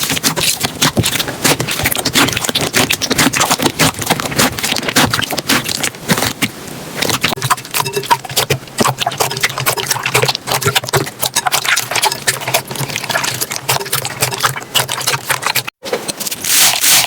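Slime being squeezed and poked by hand: a dense, irregular run of sticky clicks and small popping crackles. It cuts out for an instant near the end, then the crackling resumes.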